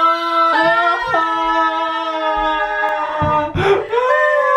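A single unaccompanied voice singing long, steady held notes. About three seconds in there is a short breathy burst, and then the voice holds a higher note.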